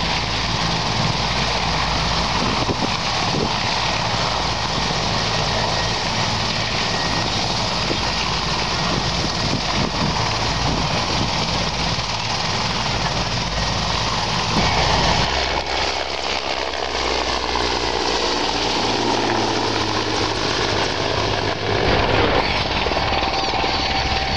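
Mi-8 military helicopter flying past, its rotor and twin turbine engines making a loud, steady noise; partway through, a faint whine dips and then rises as it passes.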